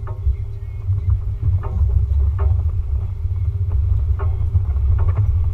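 Off-road vehicle driving slowly along a rough dirt trail: a steady low rumble of engine and tyres.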